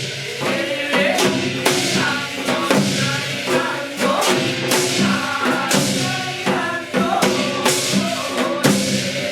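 Korean shamanic gut music in the Hwanghae-do style, performed live: voices singing or chanting over percussion, with regular bright strikes about once a second.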